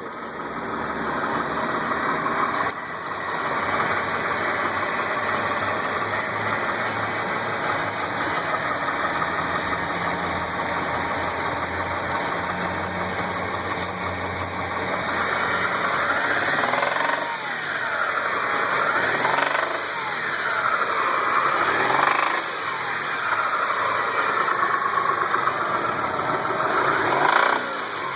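Mitsubishi 6A13 V6 engine running with a knock from worn-out bearing shells. It runs steadily at first, then is revved up and down several times in the second half.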